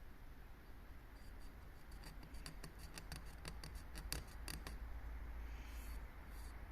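A run of short, sharp clicks, a few a second and irregularly spaced, for about three and a half seconds, followed by a brief soft rustle.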